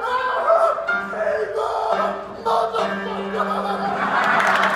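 Singers in a live musical-theatre number with band accompaniment, closing on a long held note. Audience applause begins near the end.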